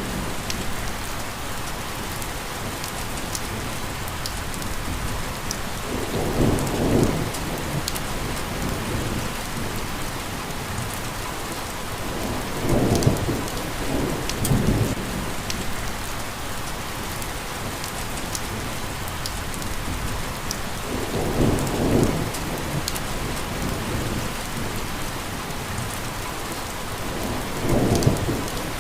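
Steady heavy rain hissing, with low rumbles of thunder rolling in several times, every six or seven seconds or so.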